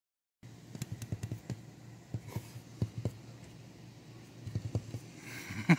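Light, irregular clicks and taps from a cat moving about on an RV dashboard against the windshield, starting suddenly about half a second in.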